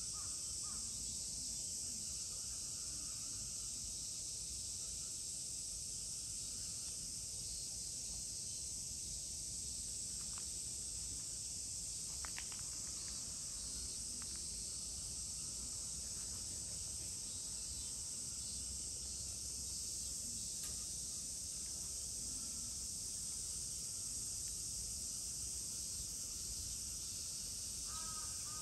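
Steady, high-pitched insect chorus droning outdoors, with a few faint clicks midway. Near the end a crow starts cawing, several caws in a row.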